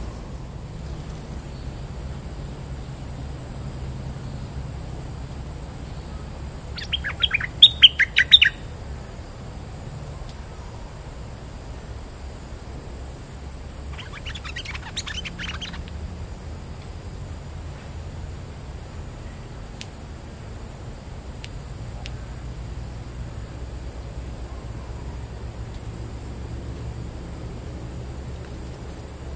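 Bulbul song: a loud burst of quick, rapid chirping notes about seven seconds in, then a fainter, shorter phrase a few seconds later, over a steady high-pitched hum.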